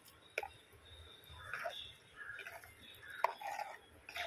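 Metal spoon stirring liquid curry in a clay pot: soft sloshing and scraping, with a few sharp clicks as the spoon strikes the pot.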